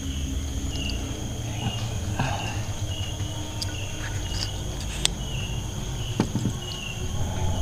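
Night insects calling: a steady high-pitched drone with a shorter chirp repeating about twice a second. A sharp click comes about five seconds in, and there is a low rumble of the camera being handled.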